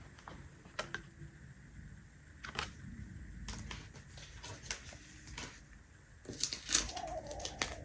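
Scattered light clicks and small paper-handling noises from working on a paper planner by hand, with a busier cluster of them near the end.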